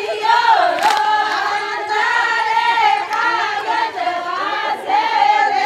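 A group of women singing a Marwari Fagan folk song together, their voices joined in one sustained, wavering melody.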